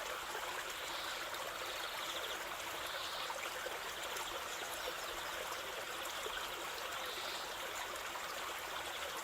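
Waterfall water rushing and splashing in a steady, even wash.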